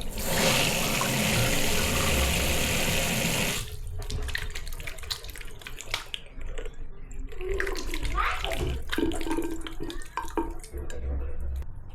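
Water running hard from a tap, shut off about four seconds in, followed by scattered knocks and clinks of things being handled.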